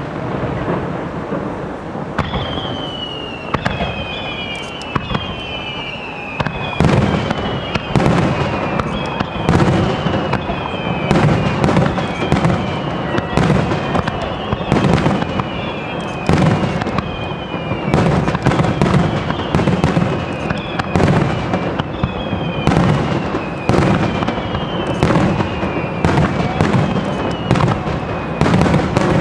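Aerial fireworks display: shell bursts going off in quick succession throughout. From about two seconds in, high whistles glide downward one after another over the bangs.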